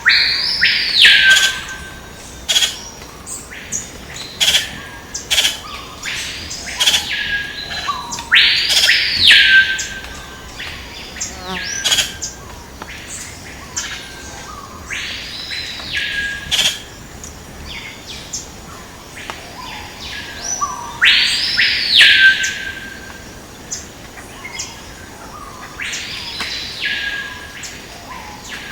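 A bird repeatedly gives loud arching whistled calls, each rising, holding and falling back over about a second, every few seconds. Short sharp chirps or clicks sound between them.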